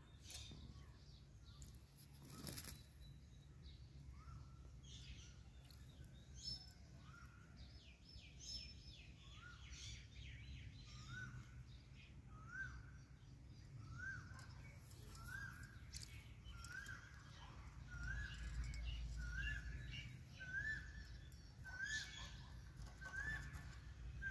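Indian ringneck parrot bathing, with faint wing flapping and splashing. From about ten seconds in, a bird gives a short rising chirp over and over, roughly once a second.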